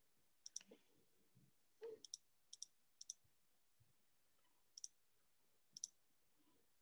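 Faint clicks on a computer: six quick double clicks spaced irregularly through near silence, with a brief soft rustle about two seconds in.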